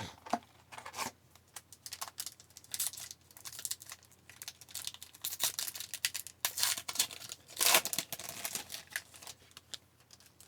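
A hockey card pack's foil wrapper being torn open and crinkled by hand, with irregular crackling rips, the loudest about three-quarters of the way through.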